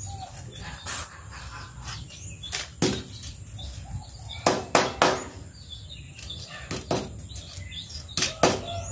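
A wire clothes hanger being worked straight on a concrete floor, giving about ten sharp metallic knocks and clicks at irregular spacing, often in quick pairs.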